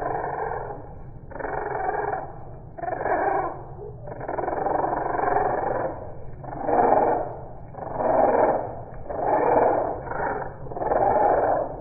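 Budgerigar aviary sound slowed down by slow-motion recording, so the birds' chatter comes out as deep, drawn-out swells. There are about eight or nine waves, roughly one every second and a half.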